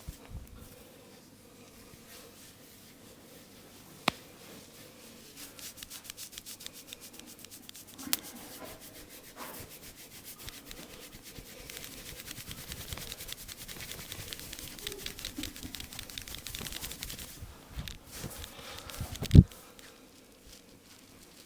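Hands rubbing briskly over the head and hair in a massage: a fast run of rubbing strokes with a dry hiss. There are a couple of sharp clicks, and one loud thump near the end.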